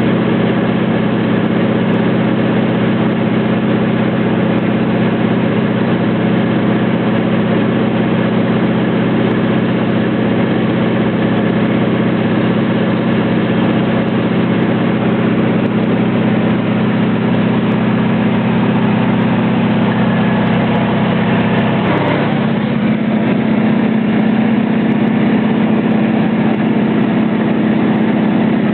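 Steady, loud drone of an aircraft's engine heard from inside the cabin during flight. About three quarters of the way through, a brief falling glide marks a small shift in the engine's pitch.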